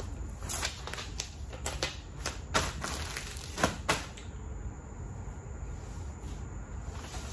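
Clicks, taps and rustles of things being handled, about a dozen sharp ones in the first four seconds, then quieter with only room hum.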